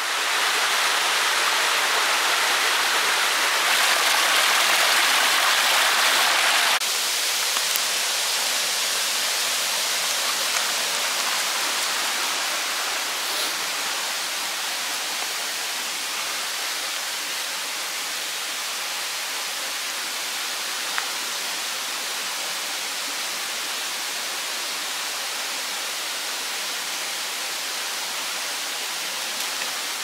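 Mountain stream water rushing and splashing over a small waterfall among rocks, a steady rushing sound. About seven seconds in it drops abruptly to a softer level and goes on steadily.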